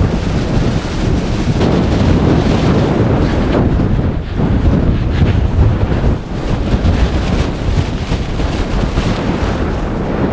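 Storm-force wind blasting on the microphone: a loud, low, rumbling rush that surges and dips in gusts, with a brief lull just after the fourth and sixth seconds.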